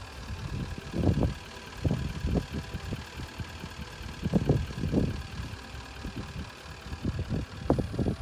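Wind buffeting the microphone in irregular low gusts, strongest about a second in, around four to five seconds in, and near the end.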